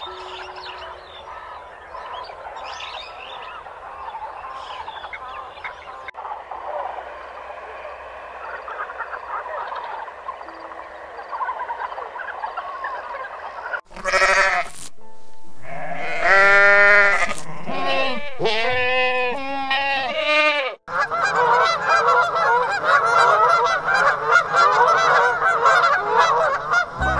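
After a quiet stretch of even background noise, goats bleat about four times, loud wavering calls. Then a flock of domestic geese honks in a dense, continuous chorus.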